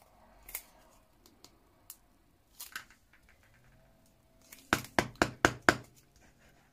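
A few soft clicks and rustles of handling, then about five quick, sharp knocks in about a second from a Tombow liquid glue bottle being worked to get glue out; the bottle is empty.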